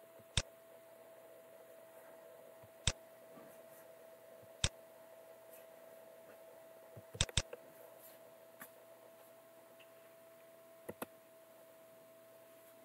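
Computer mouse clicking: a few single clicks a couple of seconds apart and a quick double-click about seven seconds in, with fainter clicks later, over a faint steady electrical hum.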